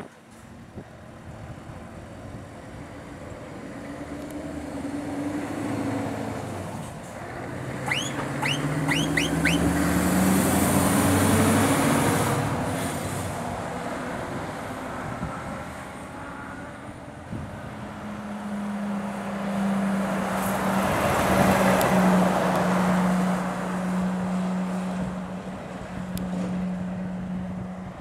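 Heavy freight lorries driving past one after another. The first pulls away with its engine rising in pitch through the gears, with a quick run of short high chirps about eight seconds in; a second passes at a steady engine note around twenty seconds in.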